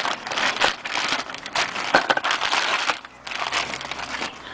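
Clear plastic packaging crinkling in irregular crackles as the new outer tie rod end is taken out of its bag; the crinkling dies down about three seconds in.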